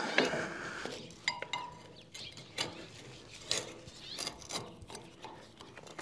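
Light metal clinks and scrapes of a steel washer and axle bolt being handled and slipped into place inside a brush hog tail wheel fork, with a short metallic ring about a second in.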